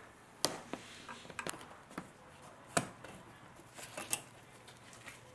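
Engine undertray (splash shield) being pushed up and fitted back under the car: a series of irregular sharp clicks and knocks from the panel and its fasteners.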